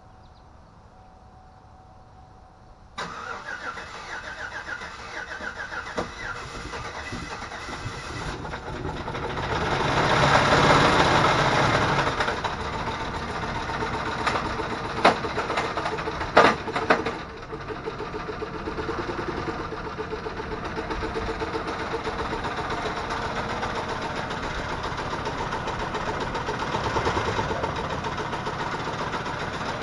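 2010 Chevy Silverado's 5.3-litre V8 starting about three seconds in, after having been locked up, then running. It swells louder for a couple of seconds, with two sharp knocks a few seconds later, then settles into a steady idle.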